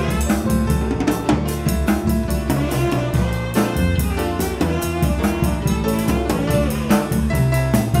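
Jazz-funk band playing live: a busy drum kit, with a steady stream of hits, drives the groove over bass, piano and saxophone.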